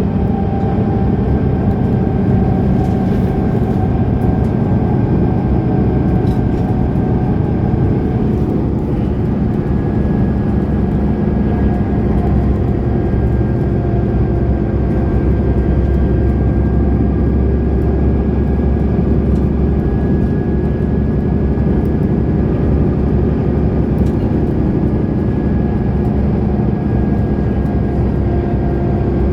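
Diesel engine and drivetrain of a 2010 Mercedes-Benz O530 Citaro Facelift Ü bus running steadily, a deep drone with a thin high whine over it.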